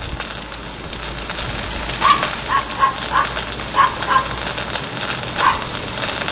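A dog barking in the distance: a run of about seven short barks, over a steady background hiss.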